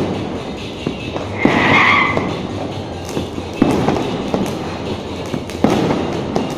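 Firecrackers going off in a street, with loud bangs about a second and a half, three and a half and five and a half seconds in over continuous crackling. A brief steady tone sounds along with the first bang.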